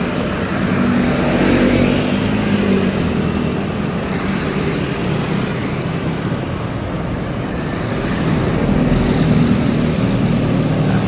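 Road traffic: the engines and tyres of passing vehicles, swelling as one goes by about a second in and again near the end.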